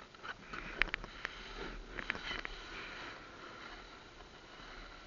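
Snowboard sliding and scraping over firm, ridged snow, a steady hiss, with a handful of sharp clicks and knocks in the first two and a half seconds.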